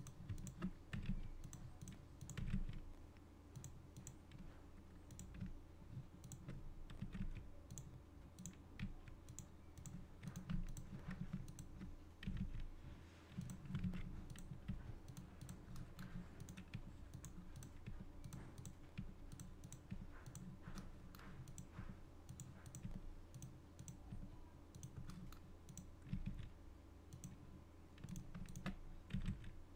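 Scattered, irregular soft clicks of a computer mouse and keyboard keys being pressed while editing on a computer, over a low steady hum.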